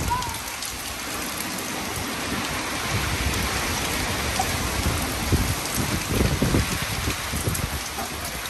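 Heavy hurricane rain falling steadily, with gusts of wind surging through it, strongest about two thirds of the way in.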